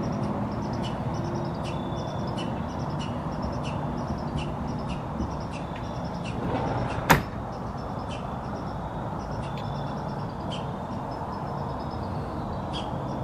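Outdoor background: a steady low rumble of distant traffic, with a short high chirp repeating a little more than once a second. One sharp click about seven seconds in.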